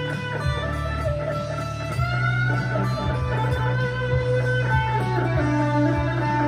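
Harley Benton CST-24T electric guitar with P90 pickups, played through a Harley Benton Plexicon overdrive pedal and a Blackstar HT-1R valve amp. It plays a lead line of held single notes, with a rising string bend about two seconds in, over a steady low note.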